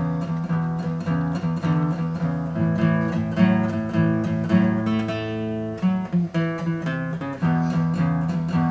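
Cutaway steel-string acoustic guitar playing a blues, picked notes over a steady repeating bass line.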